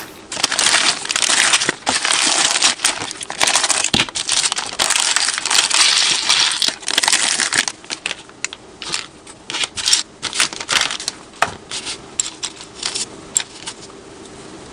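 Plastic blind bag crinkling loudly for about seven seconds as it is opened and shaken out. After that come scattered light clicks of small plastic building bricks falling onto the table, being handled and snapped together.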